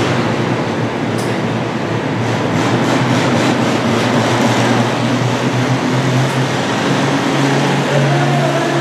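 Antique pulling tractor's engine running loud and steady, its note rising a little near the end as the tractor starts to move off.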